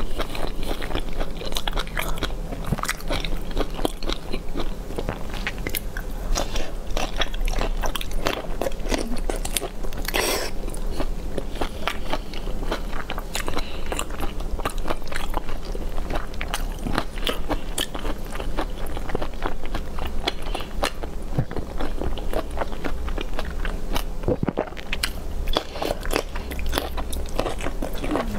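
Close-miked eating: a person chewing and crunching on spicy braised fish picked off the bone by hand, with many small irregular wet clicks and crackles of mouth noise.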